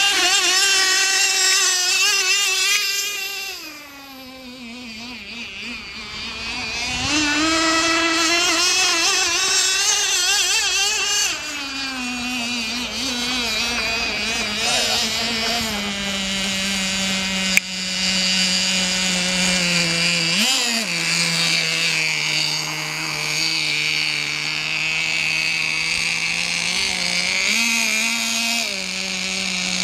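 Small nitro (glow-fuel) engine of a radio-controlled F1 racing boat running at speed, its high note dipping about four seconds in and climbing again. After about twelve seconds it settles to a lower, steadier note, with a quick blip of throttle near the middle and another near the end, and a single sharp click about halfway through.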